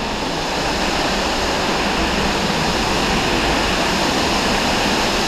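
A waterfall plunging close by: a loud, steady rush of falling and splashing water.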